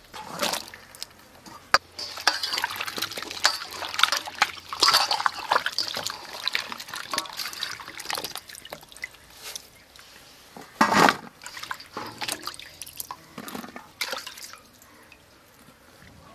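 Hands washing chopped vegetable pieces in water in a steel bowl: irregular splashing and sloshing, with pieces knocking against the metal. The loudest splash comes about eleven seconds in, and it quietens near the end.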